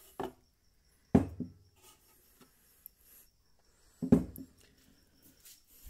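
Hard objects knocking against 8 mm plywood storage trays: three sharp knocks, a light one at the start and louder ones about a second and four seconds in, with faint small rattles between.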